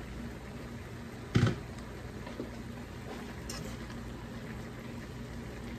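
Kitchen cooking sounds at the stove: a single dull knock about a second and a half in, then a few faint light clicks, over a steady low hum.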